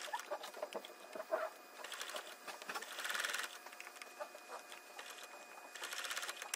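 Electric sewing machine stitching in two short runs, a longer one in the middle and a brief one near the end, with quieter gaps and small clicks as the fabric is eased around a tight curve.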